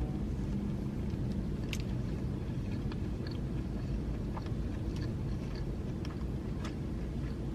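Quiet chewing of a bite of a McChicken sandwich, with a few faint mouth and wrapper clicks over a steady low rumble.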